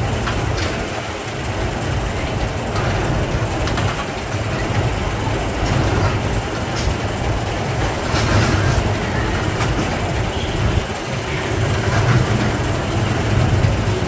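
Spinning roller coaster cars rolling along the steel track: a steady rumble with faint clacks over the rails.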